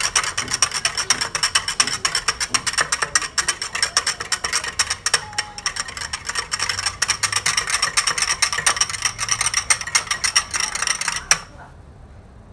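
A wire whisk beating rapidly against a ceramic bowl, mixing yogurt and powdered milk into warm milk, in quick, even strokes. The strokes stop suddenly near the end.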